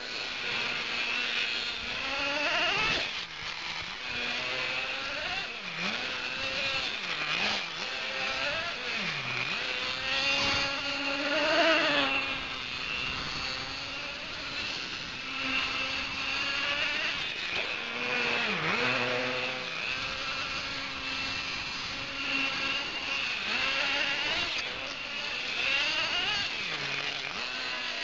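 Traxxas T-Maxx radio-controlled monster truck's small nitro engine running, its high-pitched whine repeatedly rising and falling as the throttle is opened and closed.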